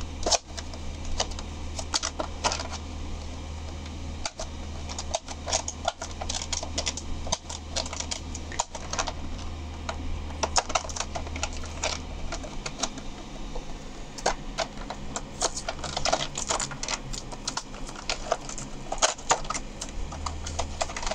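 Hands handling and opening clear plastic pen packaging: irregular crinkling and clicking, busiest in the last few seconds, over a steady low hum.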